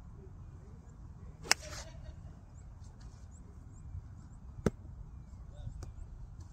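A golf iron strikes a ball off the turf about a second and a half in: one sharp click with a short rush of noise after it. A second sharp click comes about three seconds later, over a low rumble.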